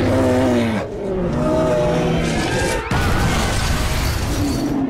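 Dramatized film soundtrack: a polar bear's roar, then after a sudden cut about three seconds in, a dense, loud burst of noise from an explosion and fire, with music underneath.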